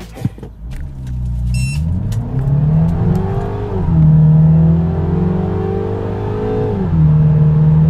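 MINI Cooper S Cabrio's 2.0-litre turbocharged four-cylinder engine accelerating hard from a launch-control start, heard inside the cabin. The engine note climbs steadily, drops at an upshift about four seconds in, climbs again and drops at a second upshift near the end.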